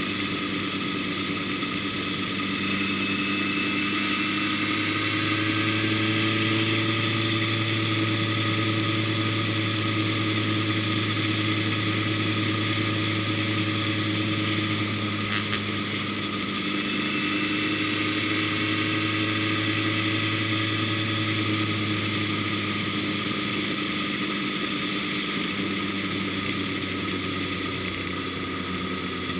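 Onboard sound of a motorcycle engine at steady cruising speed over a constant rush of wind and tyres. Its note rises about five seconds in and dips twice later as the throttle eases and opens again.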